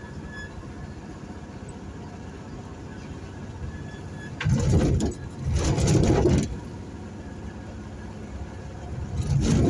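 Steady running noise of a moving road vehicle picked up by a phone mounted on it, with two loud low rumbling bursts a little past the middle and another near the end.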